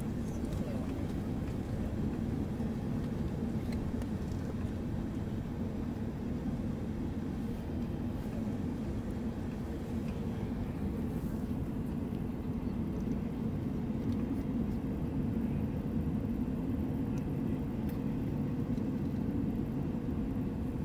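Steady low rumble of an Airbus A380's engines and rushing air, heard inside the passenger cabin during the climb just after takeoff.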